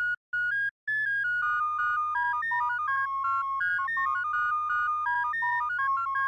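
Synthesized alert-style tune: a quick run of pure electronic beeping tones stepping up and down in pitch, over a low buzz, with two brief breaks near the start.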